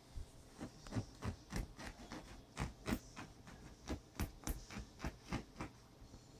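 Small dogs' paws and claws landing and scrabbling on a bare mattress as they jump and play: a quick, irregular run of thumps and clicks.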